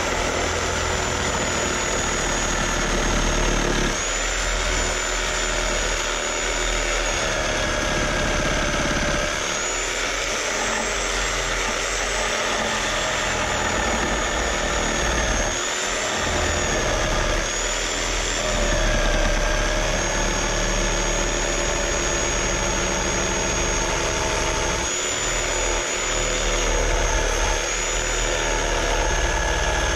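Chicago Electric reciprocating saw running and cutting through a wooden board: a steady motor whine whose pitch wavers and dips every few seconds as the blade loads up and frees in the cut.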